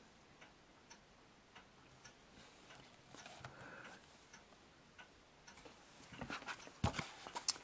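Faint, irregular ticks and light rustles of a paperback book being handled and turned, growing busier about six seconds in as the book is opened, with one dull thump near the end.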